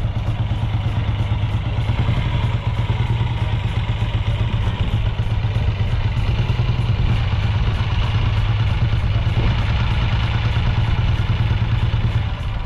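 Vincent Black Shadow's 998 cc V-twin idling steadily.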